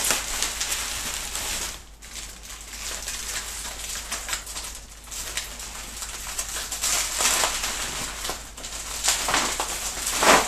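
Bubble wrap crinkling and rustling as it is handled and pulled off a wrapped bow, in a run of irregular crackles. The loudest crackle comes near the end.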